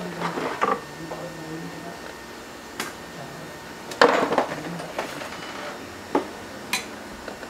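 Small hand tools tapping and clicking on a phone-repair workbench: several sharp taps, the loudest about four seconds in.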